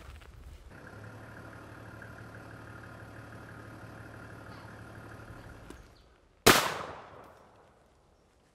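A single 20-gauge shotgun shot about six and a half seconds in, the loudest sound here, fading out over about a second and a half. Before it a steady hum runs and cuts off shortly before the shot.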